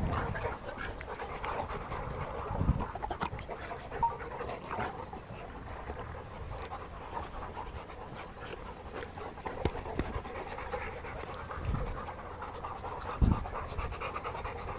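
English Labrador panting steadily, with a few scattered thumps, the loudest near the end.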